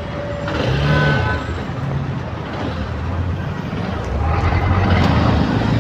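Congested road traffic heard at close range: vehicle engines running low and steady, swelling louder about a second in and again toward the end as vehicles move alongside.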